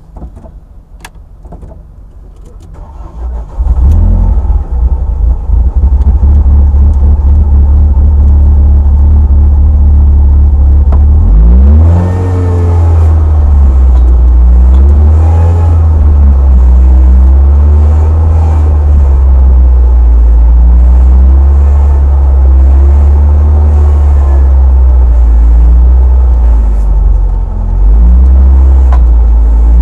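Rally car engine starting about three seconds in, heard from inside the cabin, then running loud and steady at idle. From about twelve seconds the revs rise and fall in a series of throttle blips.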